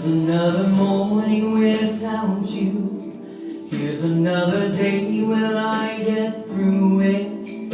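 Solo singing with musical accompaniment: a voice holding long, sliding notes in phrases of a few seconds, with brief breaths between them.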